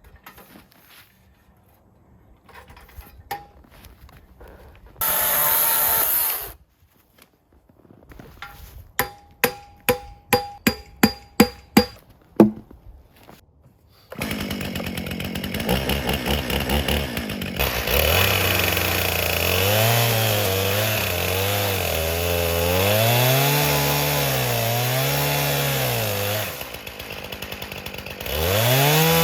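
A few seconds of handling noise and a loud rushing burst, then about nine sharp metallic taps. About fourteen seconds in, a chainsaw starts and runs with its engine revving up and down over and over as it cuts in an Alaskan chainsaw mill. It eases off briefly near the end, then revs up again. The chain is mounted backwards, which the owner discovers just afterwards, so the saw cuts poorly.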